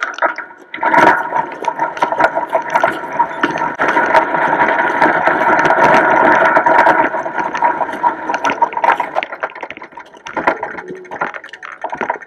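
Bicycle riding over a rough dirt and gravel trail, heard from a handlebar-mounted camera: a steady rushing of tyres on the ground with frequent rattling knocks from the bumps. It starts about a second in and eases off near the end.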